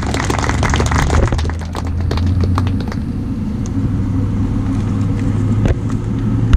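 Applause that thins out over the first second and a half, over the steady low rumble of an engine running. Near the end there is a sharp bump as the microphone is handled.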